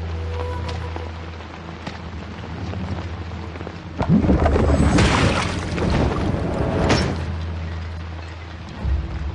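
Fight-scene film soundtrack: a low steady music drone, broken about four seconds in by a sudden loud blast-like sound effect that rushes on for some three seconds and ends in a sharp hit.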